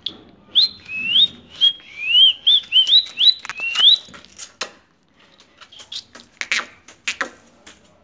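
Rose-ringed parakeet chirping: a quick run of about nine short, rising whistle-like chirps over some three seconds, followed by a few sharp taps.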